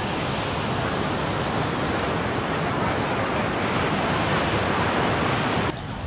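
Steady rushing noise of waves on a beach, building slightly, then cut off abruptly near the end.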